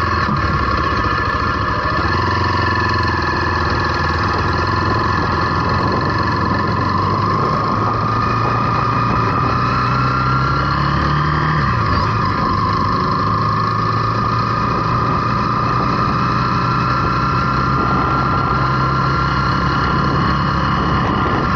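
Zontes T350 motorcycle's single-cylinder engine running under way at a steady road speed, with wind rushing over the microphone. About ten seconds in the engine note rises slightly, then drops back quickly a couple of seconds later.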